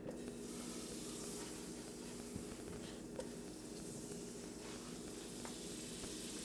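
Butter sizzling in a hot cast iron skillet: a steady hiss with a few faint clicks.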